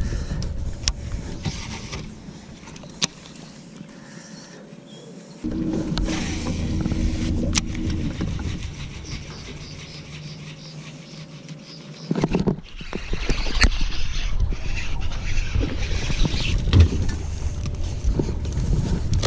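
Sounds of fishing from a bass boat: a faint steady hum with a few sharp clicks, a louder steady humming stretch from about five to eight seconds in, then about twelve seconds in a sudden change to a louder, steady low rush of the boat under way with wind on the microphone.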